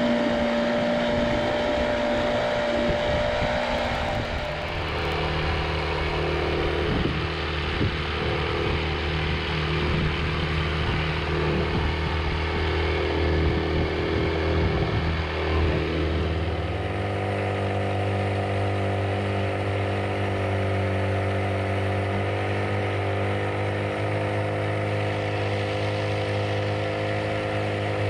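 Small outboard motor on a boat running steadily under way. Its note changes about two-thirds of the way through and then holds steady again.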